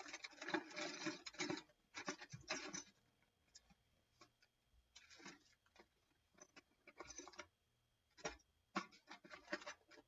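Irregular scratching and clicking of the Samsung Galaxy A16's shattered screen glass being picked and scraped off the phone, in dense clusters with short gaps of scattered ticks.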